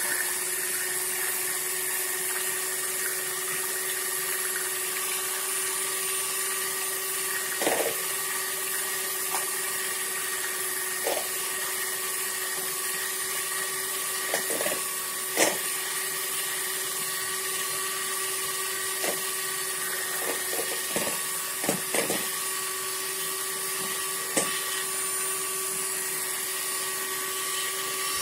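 Electric hand mixer running steadily with an even motor whine, its twin beaters whisking eggs into a froth in a bowl. A few sharp clicks and knocks come scattered through the second half.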